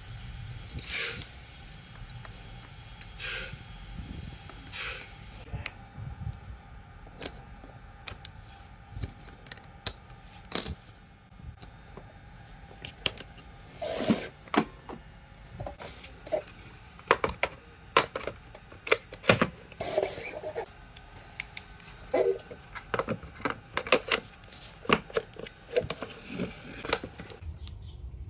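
Irregular metallic clicks, clinks and knocks of small metal parts and hand tools being handled, typical of reassembling a power tool.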